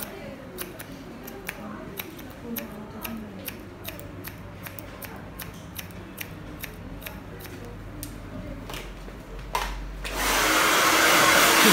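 Hairdressing scissors snipping hair in many quick, separate cuts. About ten seconds in, a hair dryer switches on and blows steadily, much louder than the snips.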